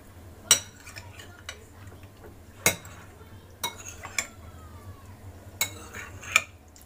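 A metal spoon clinking against a bowl while slowly mixing cubes of raw cod, about six sharp, irregular clinks over a low, steady hum.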